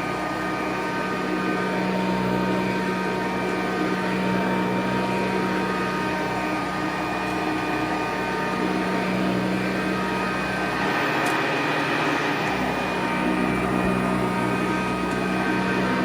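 Sanitaire SC684 commercial upright vacuum cleaner running steadily while being pushed over carpet, a very quiet, even motor hum with a steady tone.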